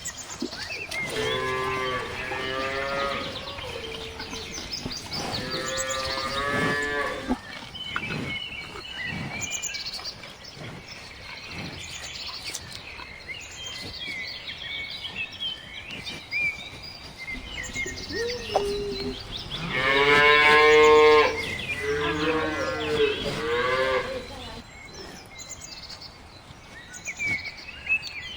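Cow mooing: four long moos, two in the first eight seconds and two more from about twenty seconds in, the third the loudest. Faint bird chirps are heard between the moos.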